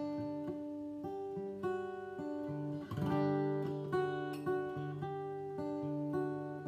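Acoustic guitar playing open chords, alternating between G major and G major 7 (a G note dropped to F sharp), each chord struck repeatedly and left to ring.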